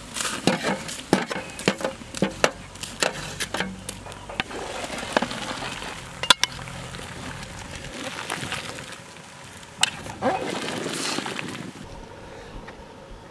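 A metal spoon clinking and scraping against a steel plate and the rim of a large steel cooking pot as thick spice paste is spooned into a simmering stew. The clinks come quickly over the first few seconds, then a few single ones later.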